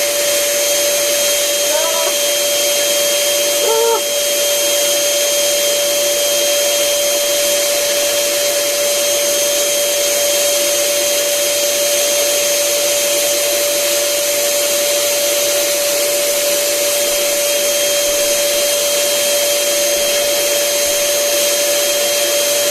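Electric air blower running steadily with a constant whine, inflating a giant balloon. Two brief squeaky chirps come about two and four seconds in.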